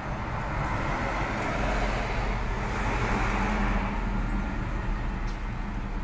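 Road traffic: a passing vehicle, a rushing noise over a low rumble that swells to a peak around the middle and then eases off.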